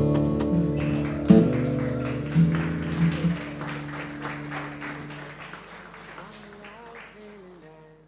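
Final chord of acoustic guitars ringing out and dying away while an audience applauds, the whole sound fading steadily to silence.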